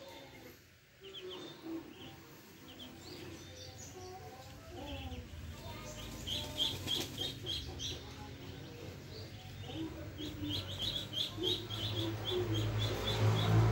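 Muscovy ducklings peeping, quick runs of short high notes several to the second, with lower clucking calls in the first half. A low droning hum builds up near the end and becomes the loudest sound.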